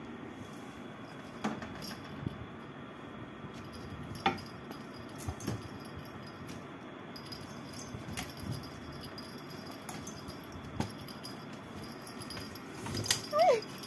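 A cat playing in a fabric hammock on a metal frame: scattered soft knocks and clatters as it tussles, with light jingling from the bell on its collar. A short cat call sounds near the end.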